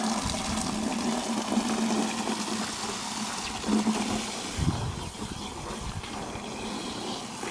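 Water spraying onto a horse as it is showered down during its bath: a steady rush of running water.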